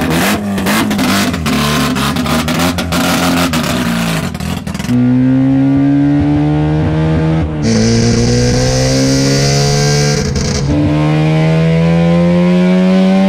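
Naturally aspirated 13B rotary engine in a Suzuki kei truck pulling hard. The first few seconds are rough and broken up, then the engine note rises steadily. It drops and climbs again twice, about seven and a half and ten and a half seconds in, as gears are changed.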